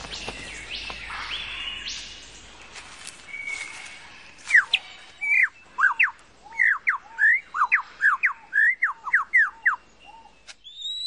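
Superb lyrebird singing: after a few seconds of noisy forest background, a run of loud, clear whistled notes that sweep down and up, about two to three a second.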